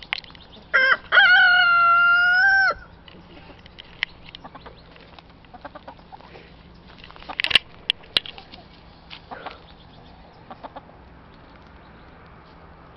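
A rooster crowing once about a second in: two short notes and then a long held final note lasting nearly two seconds. After it come scattered quieter clucks and short sharp sounds from the foraging chickens.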